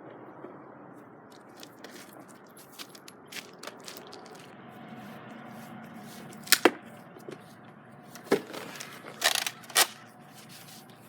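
Nerf blaster shots: a few sharp snaps, two in quick succession about six and a half seconds in, then another single snap and a short cluster of snaps near the end, over a low steady background with faint scattered clicks.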